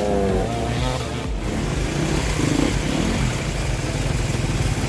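Enduro dirt-bike engines revving hard under load on a steep off-road climb, the pitch swinging up and down.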